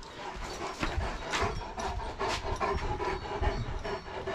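A large dog panting hard in a rapid run of short breaths, winded from chasing a thrown ball.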